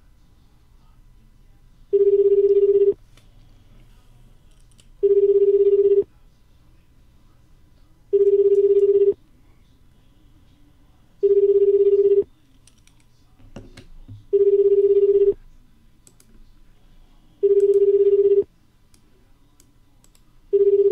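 Ringback tone of an outgoing call on a browser-based internet phone, ringing unanswered: a buzzy single-pitch tone about a second long, repeating seven times about every three seconds. The last ring is cut off near the end.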